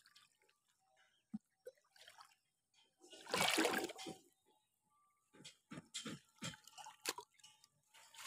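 Water dripping and splashing as a green mesh fish trap net is handled in shallow muddy water: scattered drips, a louder splash and rush of water about three seconds in as the net goes into the water, then a run of small splashes and drips.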